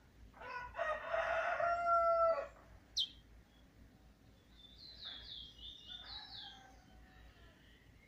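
A rooster crows once: a long call of about two seconds, starting about half a second in. A sharp click follows, then a small bird gives a quick run of high chirping notes.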